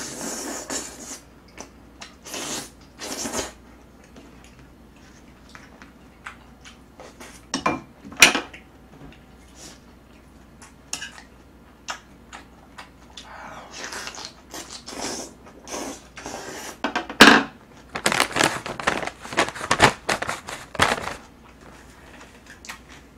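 A person eating jjajang noodles and kimchi: chopsticks and a spoon clicking and scraping against plates and a pan, mixed with wet chewing and slurping. The sounds come in scattered short bursts, thickest and loudest from about three quarters of the way in.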